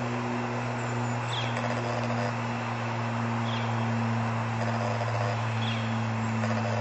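A steady low mechanical hum, with a bird giving a short, high, falling chirp about every two seconds, three times.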